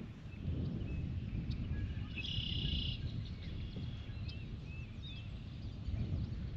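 Lakeside birds chirping in short repeated notes, with a buzzy trill lasting about a second near the middle, over a steady low rumble.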